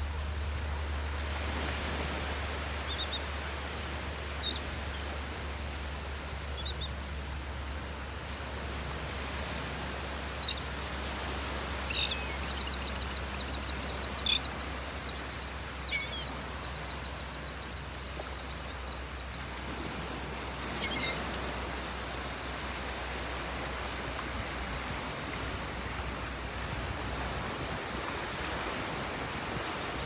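Small waves of the Gulf surf washing onto the beach, with scattered short high calls from a resting flock of black skimmers and terns, including a run of quick repeated calls in the middle.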